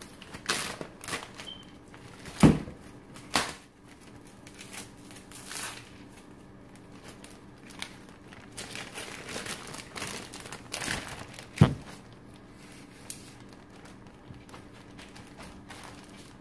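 A gallon-size Ziploc plastic bag crinkling as it is handled and opened and a steak is slid into it, with two sharp knocks, about two and a half seconds in and again near twelve seconds in.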